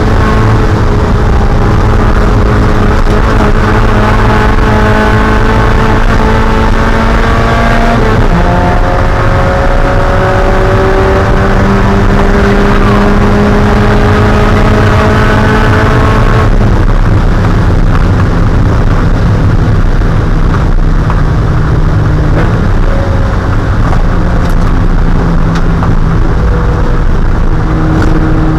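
Spec Miata's 1.8-litre four-cylinder engine pulling slowly up through the revs, shifting up about eight seconds in and pulling again. About sixteen seconds in it eases off to lower, steady revs, with loud road and wind noise throughout.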